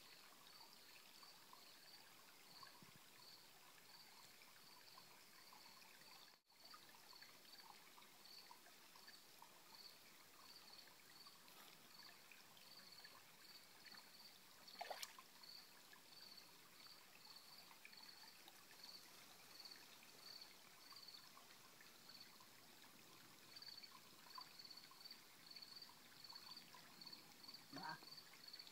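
Faint stream water trickling, with an insect chirping in short high pulses at an even pace, a little more than once a second. One brief louder sound about halfway through.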